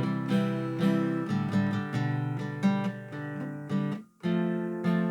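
Acoustic guitar strumming chords, with a brief stop about four seconds in before the strumming resumes.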